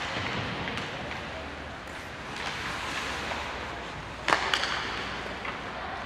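Ice hockey game on the rink: a steady hiss of skating and play, with one sharp crack about four seconds in, the loudest sound, followed by a couple of lighter clicks.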